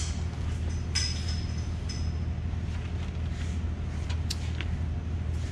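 Steady low mechanical hum in a workshop. About a second in, a sharp metallic clink rings briefly, and two light clicks follow a little after the four-second mark.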